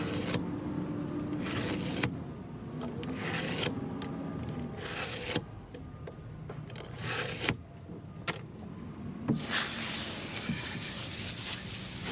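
A fillet knife cutting and scraping through a grouper's collar in short, uneven strokes, with a few sharp clicks near the middle and a steadier hiss toward the end.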